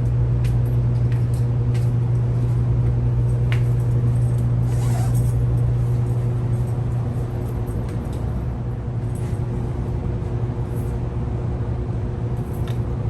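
Steady low hum of an idling vehicle engine heard from inside the cab, easing slightly about halfway through, with a few faint ticks.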